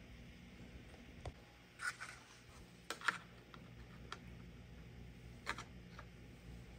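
Faint handling noises: a few light taps and scrapes, the sharpest about three seconds in and another about five and a half seconds in, as a body-filler-coated piece of a hand-built RC snowmobile body is lifted and set in place by hand.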